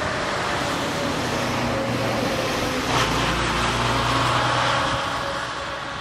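Road traffic noise: a steady rumble and hiss with a low engine hum, swelling about halfway through and easing off near the end as a vehicle passes.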